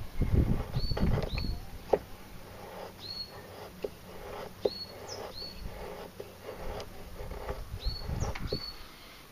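Carbon-steel bushcraft knife shaving curls off a wooden stick in repeated strokes, heaviest at the start and again near the end, with short scraping clicks between. A bird gives a short high chirp over and over, about once a second.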